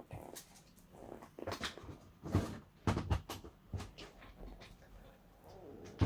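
Irregular rustling, clicks and knocks as a desk lamp, its cord and packaging are handled.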